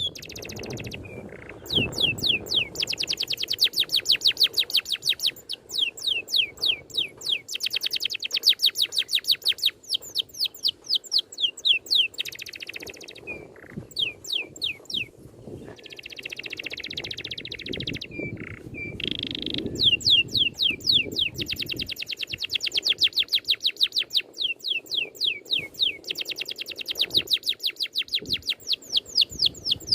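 Recorded songbird song used as masteran training audio: long rolls of rapid, evenly repeated high notes, each sweeping downward, about ten a second. Short pauses and a few rasping, buzzy phrases break up the rolls.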